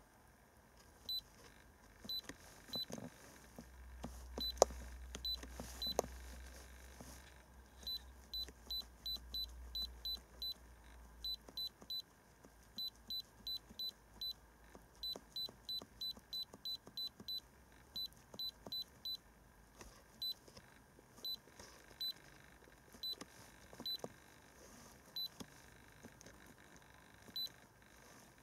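iCarsoft i930 handheld diagnostic scan tool beeping at each key press as its menu is scrolled: short, high, identical electronic beeps, often in quick runs of about three a second. A few sharp clicks and a low rumble come about four to ten seconds in.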